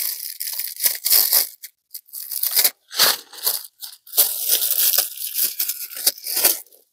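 Foil ham wrapper and its netting crinkling and rustling in irregular bursts as a hand grips and turns the ham.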